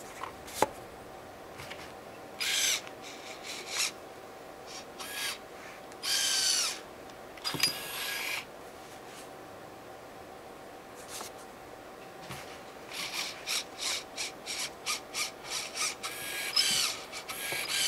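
A small motor whirring in short bursts of half a second to a second, its pitch sliding down as each burst stops. Near the end comes a quick run of short whirs, about two a second.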